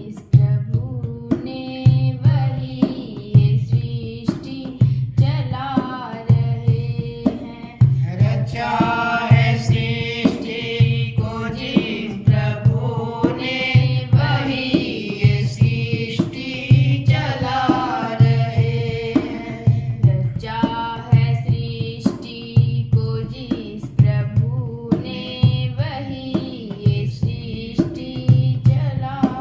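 A woman singing a Hindi devotional bhajan over a steady drum beat of about one stroke a second.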